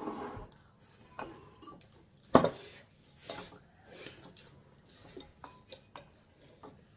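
Metal forks clinking and scraping against ceramic bowls while noodles are eaten, with scattered small clicks and one louder clatter about two and a half seconds in.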